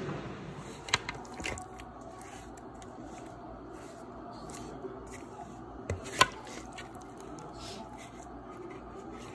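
A silicone spatula mixing chili powder into raw chicken pieces in a plastic bowl: soft scraping and squishing, with a few sharp taps, the loudest about six seconds in.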